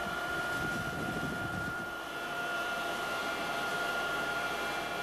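Sikorsky HH-3 Pelican helicopter running, its twin turbine engines and rotor giving a steady high whine over a rushing noise, with some low rumbling in the first two seconds.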